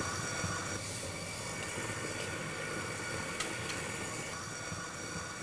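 Stand mixer running steadily, its beater whipping cream cheese buttercream in a steel bowl: a constant motor whir.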